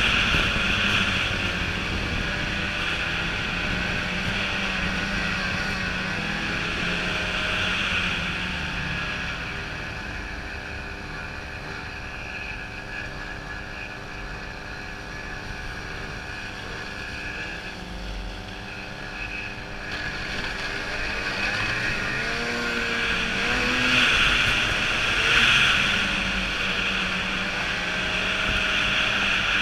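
Ski-Doo 800 snowmobile's two-stroke engine running under way, easing off for about ten seconds in the middle, then revving up again with rising pitch.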